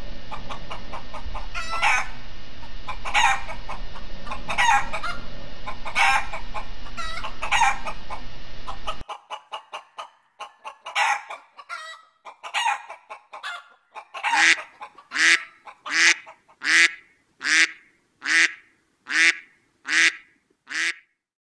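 Recorded animal calls laid on as a soundtrack, in two parts: over a steady background hiss, a call repeated about every one and a half seconds; then, after a sudden cut about nine seconds in, a clean run of short calls that settles into a steady rhythm a little faster than one a second.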